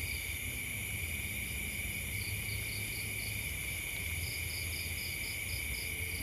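Night insects: crickets trilling steadily, with a higher chirp coming in runs of about five quick pulses a second.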